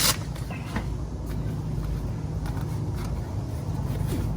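Steady low machinery hum from the walk-in cooler's refrigeration equipment running, with a few faint handling ticks.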